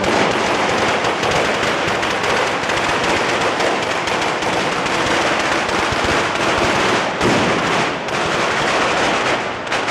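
Firecrackers and fireworks mounted on a ceremonial cart going off in a rapid, continuous barrage of sharp cracks and bangs.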